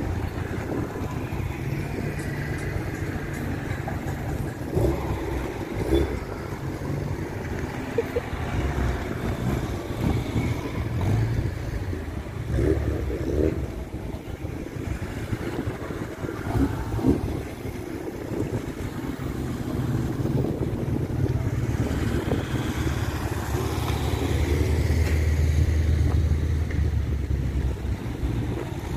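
Classic Minis driving slowly past one after another, their small four-cylinder engines running at low revs. The engine sound swells as each car goes by and is loudest near the end.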